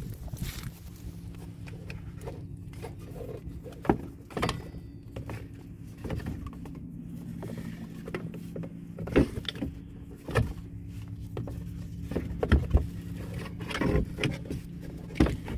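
Serpentine belt being worked off the engine pulleys by hand, with scattered knocks and clicks of belt and hands against pulleys and metal, over a steady low hum.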